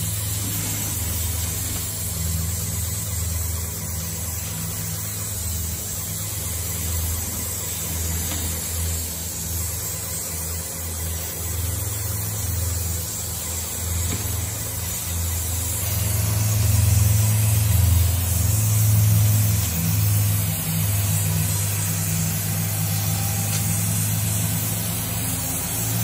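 Airless paint sprayer at work: the pump runs with a steady low drone while the spray gun hisses as it atomizes paint onto the door. The drone swells for a few seconds past the middle.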